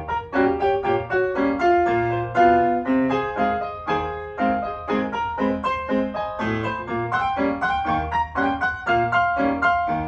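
Piano music: a brisk tune of quick, separate notes over a bass line.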